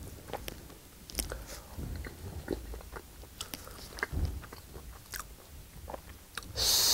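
Chewing of pan-fried Spam, with small crisp clicks and wet mouth noises. A short, loud hiss comes near the end.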